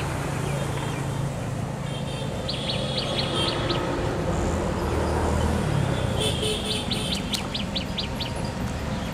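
A small bird calling in two quick runs of about seven or eight sharp chirps each, one about two and a half seconds in and another around six seconds in, over a steady low rumble.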